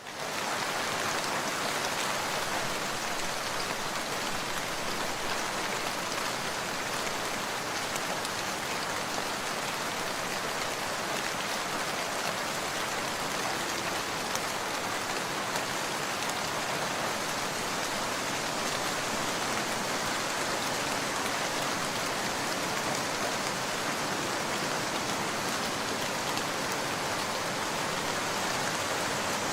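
Steady rain falling: a dense, even patter of many drops at a constant level.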